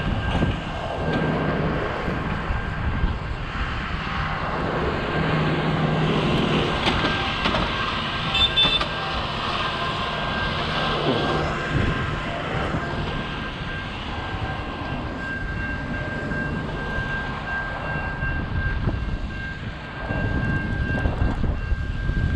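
Steady rushing wind-and-road noise from a bicycle ride in strong snowstorm winds, with a vehicle-like rumble and a faint steady high tone underneath.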